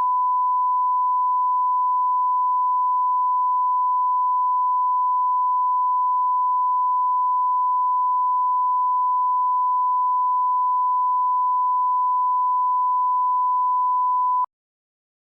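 Steady 1 kHz line-up test tone at about −20 dBFS, the reference tone placed at the head of a picture-lock cut for the sound mix. It holds one unchanging pitch and cuts off abruptly near the end.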